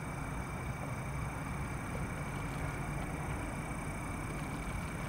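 Steady low background rumble with a faint, constant high-pitched whine running through it.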